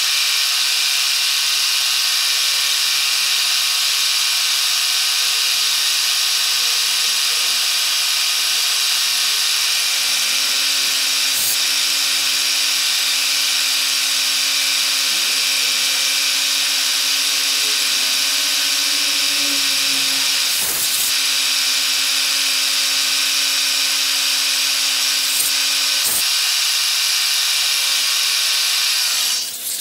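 Milling machine spindle with an end mill cutting aluminium dry: a loud, steady whine with high chip hiss. A few sharp clicks break in around the middle and near the end.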